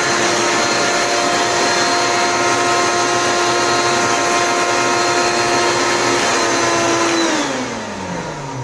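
Walita 500-watt blender motor running steadily on a thick load of chopped parsley with no water added. About seven seconds in it is switched off, and its whine falls in pitch as it spins down.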